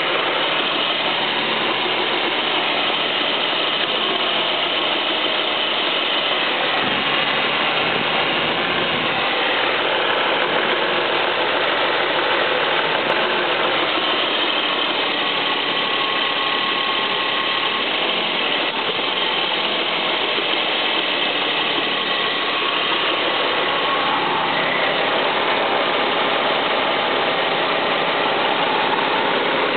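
Ford Mustang V6 engine running steadily with a metallic clacking, which the owner suspects comes from the water pump or from aftermarket exhaust headers.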